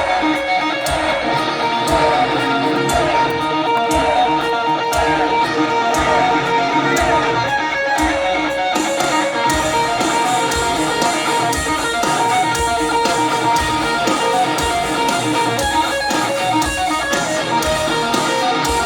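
Rock band playing live: electric guitars holding sustained notes over a steady, regular kick-drum beat.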